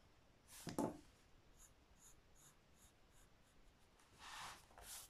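Faint strokes of a graphite pencil on squared notebook paper: light short touches, a longer stroke near the end, and a soft knock about a second in that is the loudest sound.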